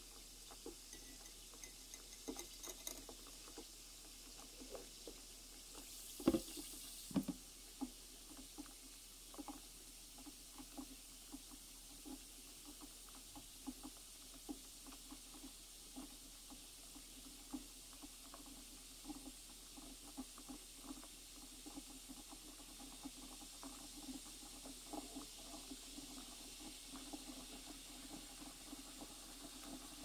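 Acid fizzing as it reacts with brass connectors in a glass jar: faint, irregular crackle of many small popping bubbles, growing denser toward the end as foam builds up. Two louder knocks come about six and seven seconds in.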